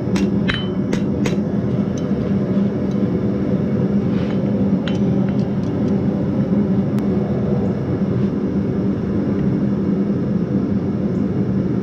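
A blacksmith's hammer strikes hot steel on the anvil four times in quick succession in the first second and a half. A few light metal clinks follow a few seconds later. All of it sits over a steady, loud droning hum.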